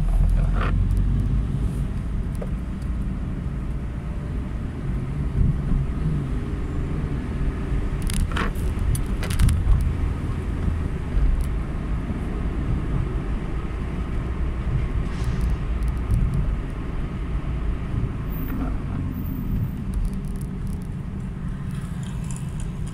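Car driving through town traffic: a steady low rumble of engine and road noise, with a few brief knocks about eight to nine seconds in.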